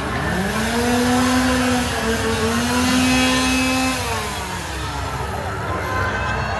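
A motor-like drone rises in pitch, holds steady for about three seconds, then winds back down, over a loud, steady hiss.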